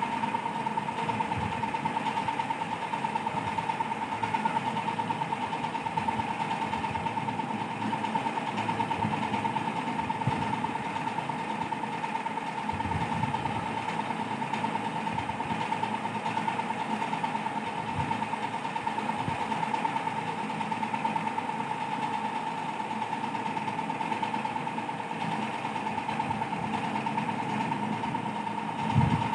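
Steady mechanical hum with a constant whining tone, and a soft bump just before the end.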